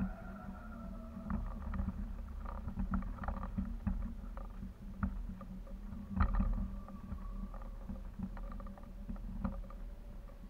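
Kite aerial photography camera rig swinging on the kite line: wind rumbling on the microphone with irregular clicks and knocks from the rig, a louder knock about six seconds in, and a faint steady tone that wavers in pitch.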